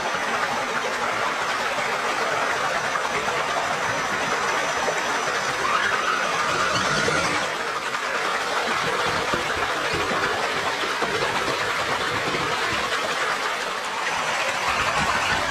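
Steady rush of a small creek waterfall, with water splashing as scale RC crawler trucks drive up through it.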